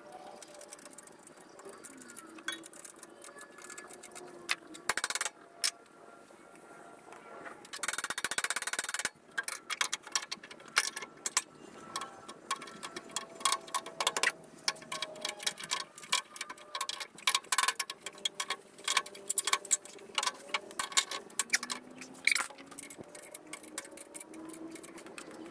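Light clicks, taps and rattles of wire and small metal parts being handled while the electric motor of a pumping unit is wired up. The clicks come sparsely at first and then in quick, uneven runs. About 8 seconds in there is a loud rush of noise lasting about a second.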